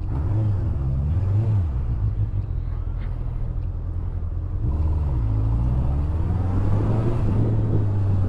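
Honda CBF motorcycle's inline-four engine running under way, its revs rising and falling near the start and again about five seconds in before holding steady, with wind rush underneath.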